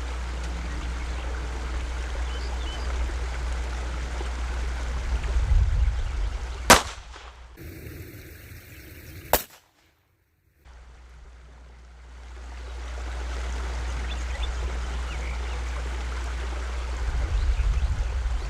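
Two sharp shots from a Glock pistol fitted with an Advantage Arms .22 LR conversion kit, the first loud, the second quieter about two and a half seconds later, over a steady low rumble of wind on the microphone.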